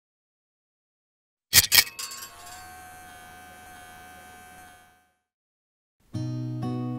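Intro logo sound effect: a quick cluster of loud, sharp hits about a second and a half in, followed by a ringing tail that fades out by about five seconds. Acoustic guitar music starts about a second later.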